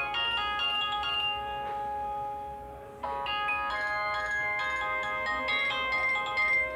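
Nokia N70 mobile phone ringtones: one synthesized melody of clear pitched notes fades out, and about three seconds in another ringtone melody starts abruptly.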